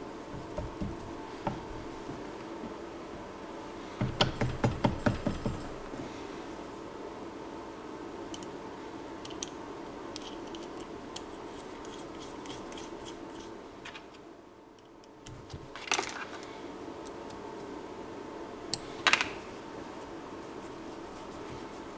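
Metal clinks and clicks of a steel sleeve being handled, slid on and turned on an electric motor's shaft, over a faint steady hum. A quick run of about seven light knocks comes a few seconds in, and a few sharper clicks come later.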